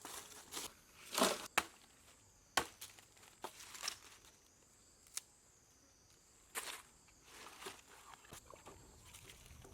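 Scattered rustles, crackles and sharp knocks of things being handled or stepped on, loudest about a second in, with single clicks and a short burst later on and quieter stretches between.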